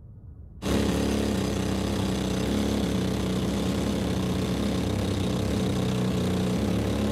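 A loud mining machine starts abruptly about half a second in and runs steadily, a harsh mechanical clatter over a strong hum.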